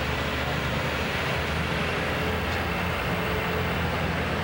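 Engine idling steadily, a low even drone over the noise of a large indoor arena.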